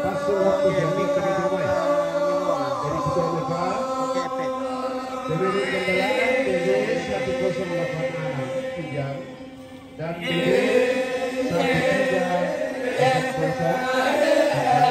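Badong, the Torajan funeral chant: a group of voices chanting together in long, drawn-out tones. The chant dips briefly about two-thirds of the way through, then swells again.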